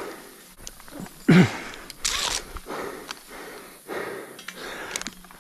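A rope climber's heavy, effortful breathing as he hauls himself up by foot locks. A short grunt falling in pitch comes about a second and a half in, followed by sharp breaths.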